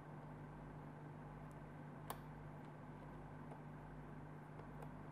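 Quiet room tone: a faint steady electrical hum and hiss, with one short faint click about two seconds in.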